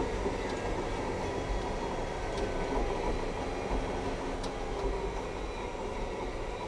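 Cat large track-type dozer running steadily under load as its blade cuts and loads dirt, a continuous engine-and-machinery rumble.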